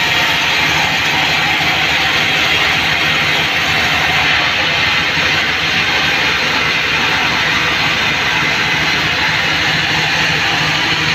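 Band sawmill cutting lengthwise through a mahogany log: a steady, loud hiss of the blade in the wood over a low hum from the saw's drive.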